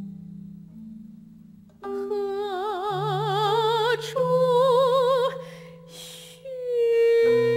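Chinese-style music: low held notes, with a wavering melody line entering about two seconds in and stepping upward, a strong vibrato on every note.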